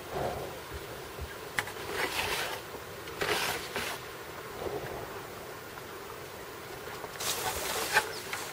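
Kayak paddle strokes through calm water: three splashing dips of the blades, with a couple of sharp clicks.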